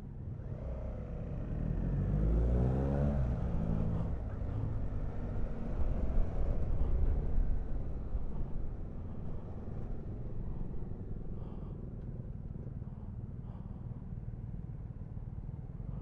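Suzuki V-Strom motorcycle engine pulling away from a standstill, revs rising through first gear and again after a shift about three seconds in. It then settles into a steady, quieter run at town speed.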